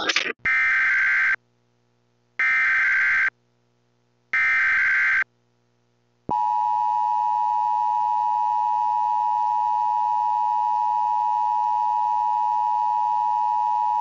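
Emergency Alert System tones: three short bursts of screechy SAME header data about two seconds apart, then, starting about six seconds in, the EAS two-tone attention signal, a steady harsh dual tone.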